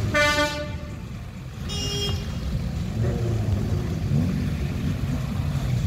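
A car horn gives a short toot, then a second, higher toot about a second and a half later, over the low running of car engines pulling away slowly.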